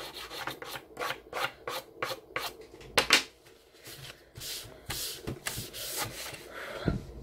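A tissue rubbing dry soft pastel into paper to blend the colour, in quick back-and-forth strokes about four a second. After a short pause about three and a half seconds in, a few longer, slower strokes follow.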